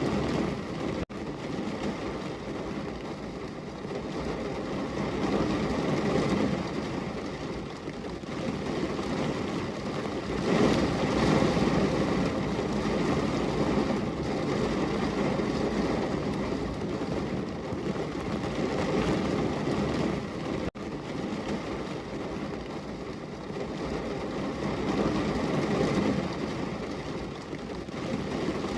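Heavy rain pouring against a window: a dense, steady hiss that swells and eases every few seconds, cut by two very short dropouts, about a second in and again about two-thirds of the way through.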